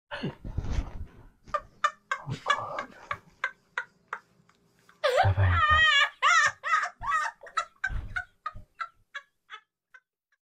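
A puff of breath rushes across the microphone at the start. Then comes high-pitched cackling laughter, with a loud wavering squeal about five seconds in, trailing off into short bursts of giggling that grow fainter.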